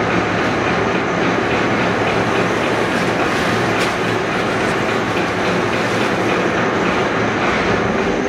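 Steady mechanical rumble and clatter of the Saint-Louis-Arzviller inclined plane's water-filled caisson running on its rails.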